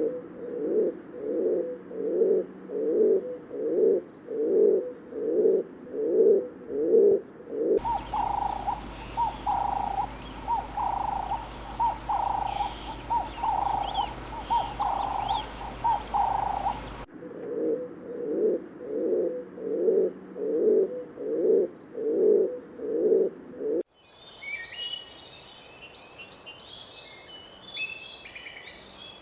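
A series of animal calls: a low call repeated about twice a second, a higher repeated call over a steady hum in the middle, then the low call again. Small birds chirp near the end.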